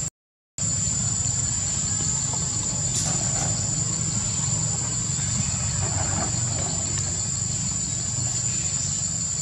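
Steady high-pitched insect chorus droning without a break, over a low steady rumble; the sound cuts out completely for about half a second right at the start.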